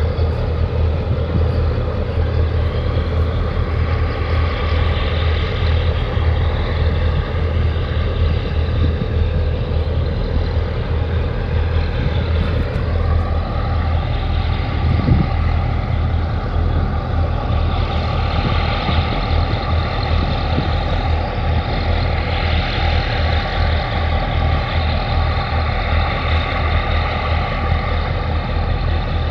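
Heavy diesel engines of a large container ship and its escort tug running steadily as they pass close by, a deep low rumble with a steady higher whine that settles in about halfway.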